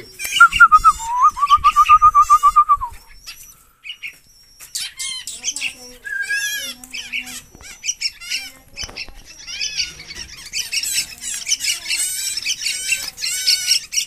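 Several birds chirping and calling in short high notes. A loud, rapid trill holds one pitch for the first three seconds, and the chirping grows thicker over the last few seconds.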